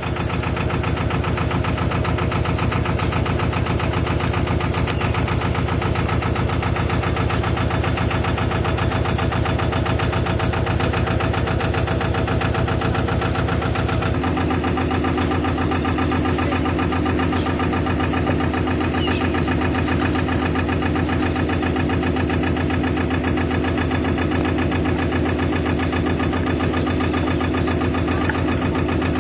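Canal narrowboat's diesel engine running steadily with an even, rhythmic beat as the boat cruises; its note changes abruptly about halfway through.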